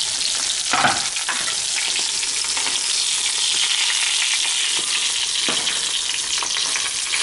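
Slices of pork neck sizzling steadily as they fry in lard in a frying pan, with a few light clicks.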